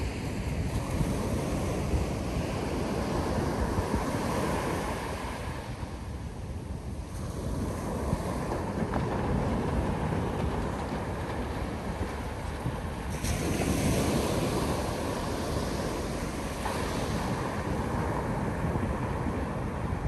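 North Sea surf, waves breaking and washing in continuously, with a louder wave surging in about thirteen seconds in. Wind buffets the microphone.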